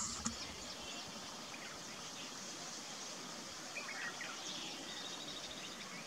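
Steady outdoor background hiss with faint, scattered bird chirps and a short click just after the start.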